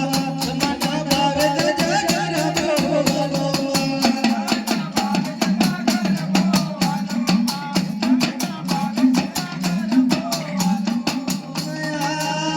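Live Gujarati dakla devotional folk music: a fast, steady drum beat of about six strokes a second over a held drone, with a singing voice wavering above it.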